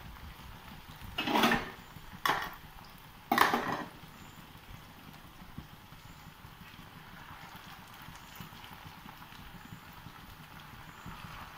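Potato slices deep-frying in hot oil with a steady sizzle. Three loud scraping knocks from a wooden spatula in the pan come between about one and four seconds in.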